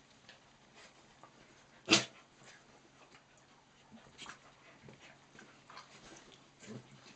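Miniature dachshund and cocker spaniels play-fighting, with one loud, sharp dog yip about two seconds in, then a few fainter short dog sounds.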